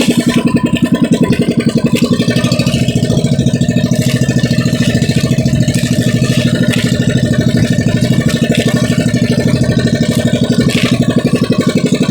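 The small engine of a motorized outrigger boat (pambot) running steadily, with a rapid, even chugging beat.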